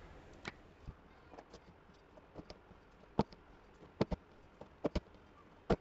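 A wooden rolling pin clicking and knocking against a steel rolling board as a folded paratha is dusted with flour and rolled out. The knocks are short and sharp at irregular spacing, several close together in the second half.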